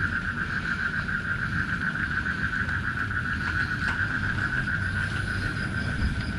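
A steady night-time chorus of many calling animals, a dense high trill that never lets up, with a low rumble underneath.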